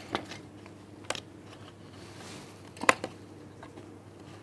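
Quiet room tone broken by a few short clicks and taps, the clearest about a second in and just before three seconds in, as an old computer motherboard is handled.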